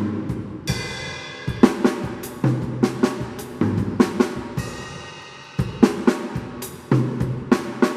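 Drum kit playing a sebene-style fill pattern: quick snare and tom strikes over bass drum, with a cymbal crash ringing out about a second in and again past the middle.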